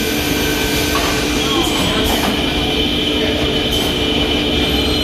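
Double-ended woodworking boring machine running, its motors giving a steady mechanical whine over dense noise; a higher whine joins about a second and a half in.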